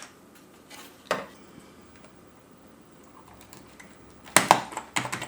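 Plastic keycaps clicking and clattering as they are handled and pushed onto an Amiga keyboard: a single click at the start, another about a second in, then a louder quick cluster of clicks near the end.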